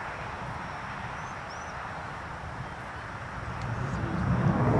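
Jet roar of an Avro Vulcan's four Rolls-Royce Olympus turbojets in flight, steady and distant at first, then swelling sharply louder in the last second.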